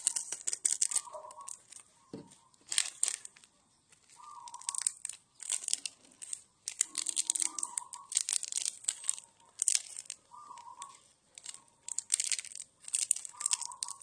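A person eating noodle soup, slurping noodles in quick, noisy bursts with short pauses between mouthfuls.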